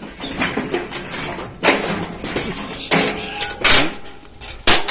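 Steel bars of a pig crate and wheeled pig cart clanking and rattling as a pig is shifted inside, with several sharp metal knocks.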